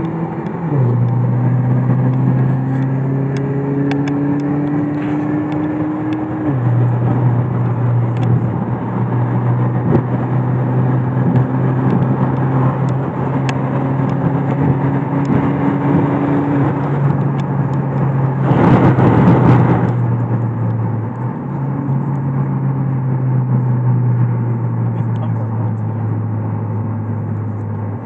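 Audi A3's engine droning inside the cabin while driving. The pitch creeps up slowly and steps down abruptly a few times at gear changes. About two-thirds of the way through comes a brief, loud burst of rushing noise.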